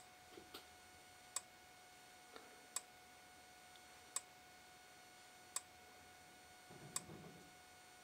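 Faint, sharp clicks from a Simplex 4903-9101 (Gentex-built) strobe firing, one tick per flash, six evenly spaced about 1.4 s apart over a faint steady high tone. The slow rate shows an old strobe that does not flash very fast at all.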